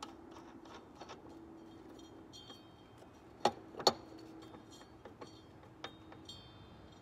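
Hand tools clicking and clinking against the metal parts of a riding lawn mower during a repair, with small ringing pings and two sharp knocks close together about three and a half seconds in.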